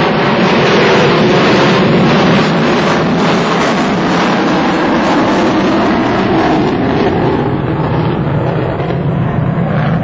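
Loud jet noise from a B-1B Lancer's four General Electric F101 afterburning turbofan engines as the bomber flies past and banks away, easing a little over the last few seconds.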